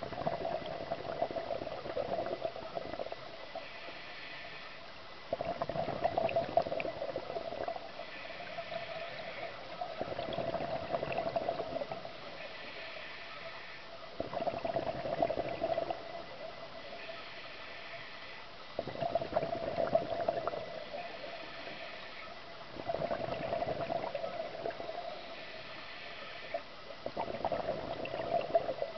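Scuba diver breathing through a regulator underwater: exhaled bubbles gurgle out in bursts of two to three seconds, about every four seconds, with a fainter hiss of the inhaled breath between them.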